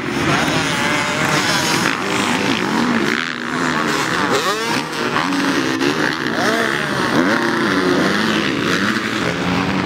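Several motocross bikes racing, their engines revving up and dropping back over and over as they change gear, overlapping throughout.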